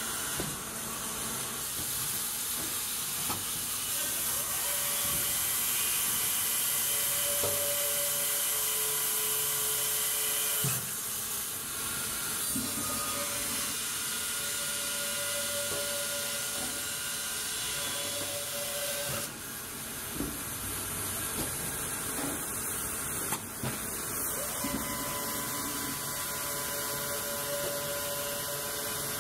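Baker band resaw line running: a steady hissing machinery din from the 40 hp electric saw and its hydraulically driven conveyors and rollers, with faint recurring tones and a few knocks.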